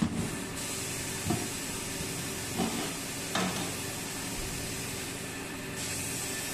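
Steady air hiss from a tyre changer, with four short knocks and clunks in the first few seconds as a car tyre on a steel wheel is pushed against the bead-breaker blade.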